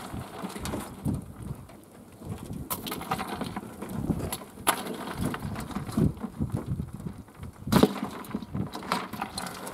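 Rustling and scattered clicks and knocks as live yabbies are picked by hand out of a collapsible mesh net trap lying on a plastic surface, with one sharper knock near the end.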